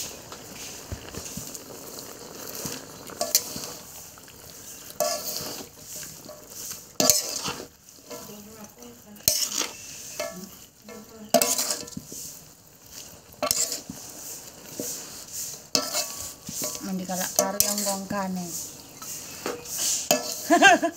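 Metal spatula scraping and clanking against a large wok as a chopped meat and vegetable mixture is stirred and tossed, in irregular strokes.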